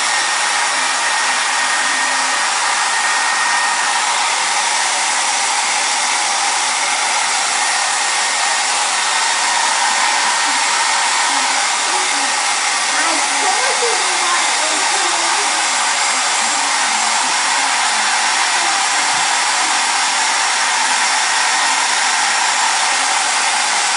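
Handheld hair dryer running steadily, a constant rushing hiss with no change in pitch or level.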